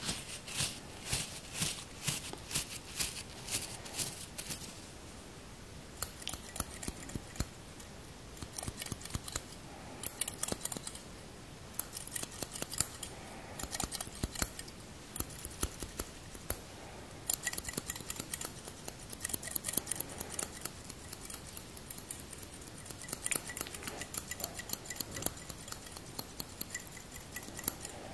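Barber scissors snipping close to a furry microphone windscreen, a crisp metallic snip on each close. A steady run of a couple of snips a second gives way to quicker flurries, with brief pauses between them.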